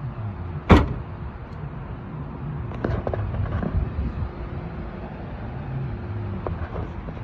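A car door slams shut with a single sharp thump about a second in. A low steady rumble and a few faint clicks follow.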